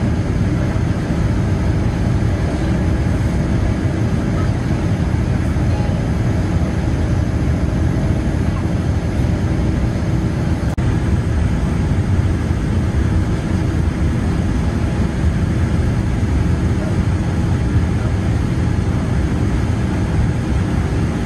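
Cabin noise of a Boeing 787-9 Dreamliner taxiing after landing: a steady low rumble of the engines at taxi power and the airframe rolling, with a faint steady hum.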